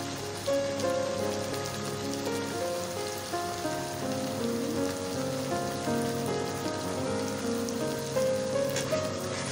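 Chopped onions frying in hot oil in a kadhai, a steady sizzle, with instrumental background music over it.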